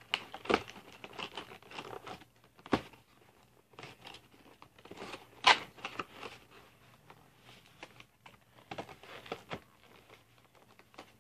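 Action-figure packaging being torn open and crinkled by hand: irregular rustling with scattered clicks and a couple of sharper snaps.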